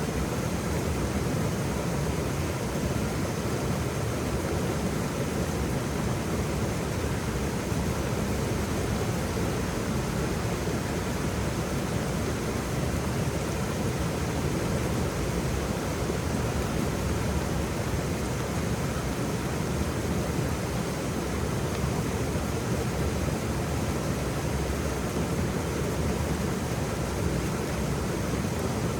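Waterfall: water falling and splashing in a steady, unbroken rush with a deep low rumble.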